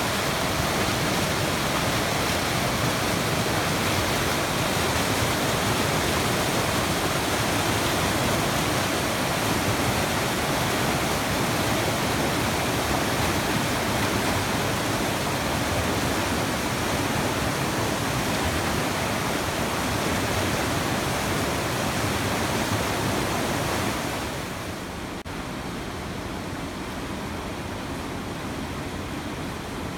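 Muddy floodwater rushing in a steady torrent through piled logs and debris. About six seconds before the end the sound drops to a quieter, duller steady rush.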